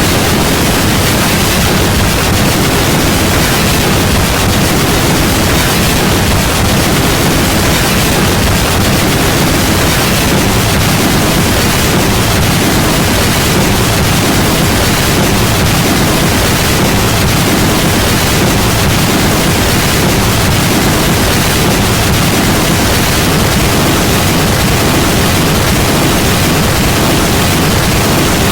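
Loud, steady static-like noise filling every pitch from low to high, unchanging throughout.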